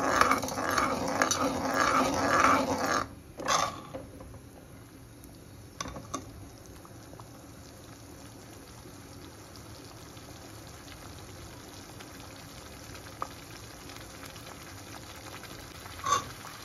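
Metal spoon stirring and scraping wet semolina halwa in a metal kadhai, about two strokes a second for the first three seconds, with one more short scrape just after. Then the spoon stops and the semolina, ghee and sugar-water mixture simmers with a faint steady bubbling hiss.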